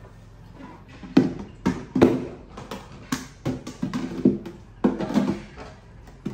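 Plastic food containers and lids clattering against a stainless-steel kitchen sink as they are handled and set down: a quick string of about a dozen knocks, starting about a second in.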